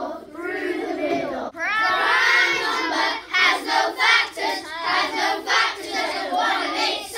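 A class of children singing a maths song in unison. About a second and a half in it switches abruptly to louder group chanting in a rhythm of about three syllables a second.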